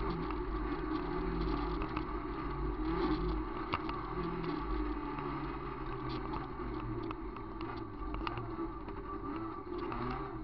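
VW Gol rally car's engine running and shifting in pitch, heard from inside the cabin, over the rumble of tyres on a dirt road, with scattered sharp clicks like gravel striking the car.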